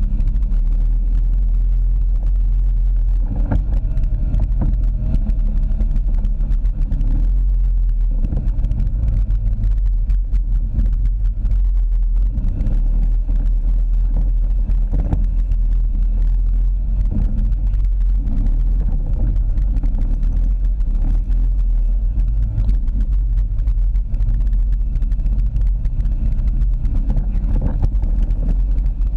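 ATV engine running steadily while riding over a rough muddy dirt trail, with a constant low rumble and scattered knocks from the bumps, picked up close by a camera mounted on the quad's front.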